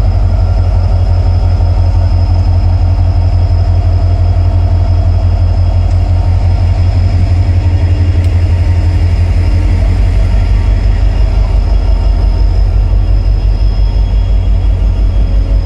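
WDP4B diesel-electric locomotive's EMD 16-cylinder two-stroke engine running steadily at close range. It makes a loud, even low rumble with a fast pulsing beat and a steady higher hum above it.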